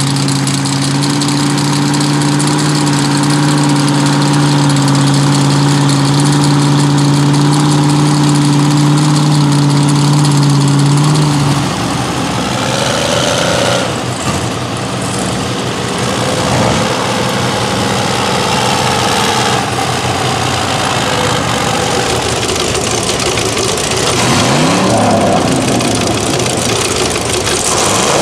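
Big-engine lifted mud trucks idling in a line, with a steady low hum over the first ten seconds or so that cuts off suddenly. After that the engines keep running with occasional short revs.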